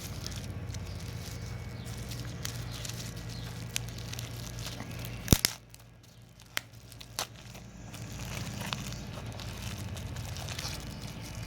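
Bubble wrap crinkling as it is handled and pulled off a vape mod, with scattered small clicks and one sharp click about five seconds in, over a steady low hum.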